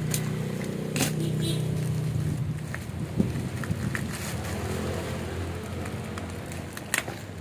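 A steady motor hum that fades away about two and a half seconds in, with scattered sharp clicks and knocks.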